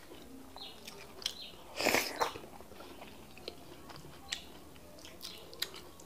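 Close-up wet chewing and lip smacking of fufu and bitter leaf soup eaten by hand. Scattered short smacks, with one louder, longer wet mouth sound about two seconds in.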